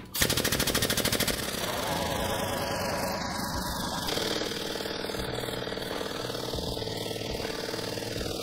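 Air-over-hydraulic pump running with a fast, even pulsing as it drives the hydraulic cylinder that bends the tube on a JD Squared Model 3 tube bender. It starts suddenly and stops near the end.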